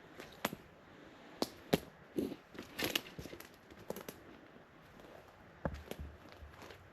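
Footsteps on a forest floor, with twigs snapping and dry debris crackling underfoot in irregular sharp cracks. The loudest crack comes a bit under two seconds in.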